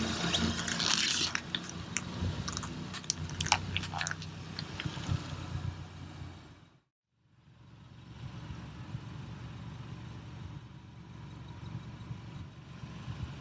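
Crackling and snapping of objects crushed under a slowly rolling car's tyre, over the low hum of the car's engine. The snaps are densest in the first few seconds. After a brief break, the engine and tyre noise carry on steadily without the cracking.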